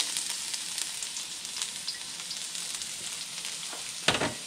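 Minced garlic sizzling in hot peanut oil in a wok: a steady hiss with small crackles, and one sharp knock near the end.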